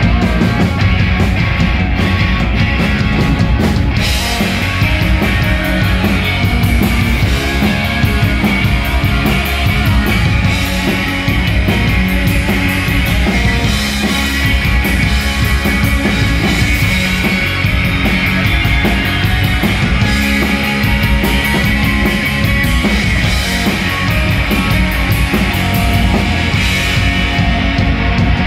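Live punk rock band playing loud and steady: electric guitar, bass guitar and a Canopus drum kit driving the song.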